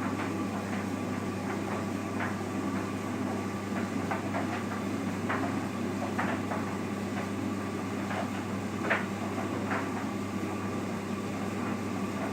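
Simpson tumble dryer running: a steady motor hum and drum rumble, with irregular light clicks and knocks.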